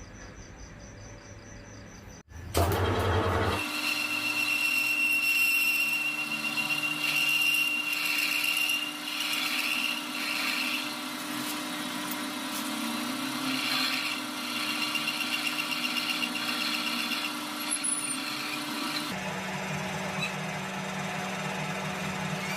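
Metal lathe starting up about two seconds in and running steadily under cut, with a high whine from the tool on the metal for several seconds. Near the end the machine's note drops to a lower hum.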